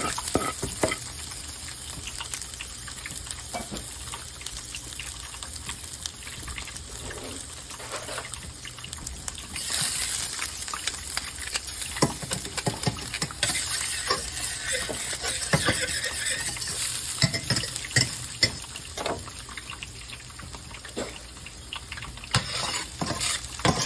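Hot oil sizzling in a pan as minced garlic toasts, with stirring and scattered clicks of a utensil against the pan. The sizzling grows louder about ten seconds in and again from about thirteen to eighteen seconds.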